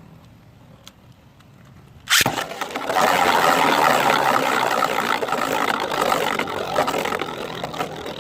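Two 3D-printed Beyblade spinning tops, Cursed Drakken and Ratchet Tortuga, are launched with a sharp snap about two seconds in, then spin and scrape against each other in the stadium with a loud, dense whirring that slowly fades.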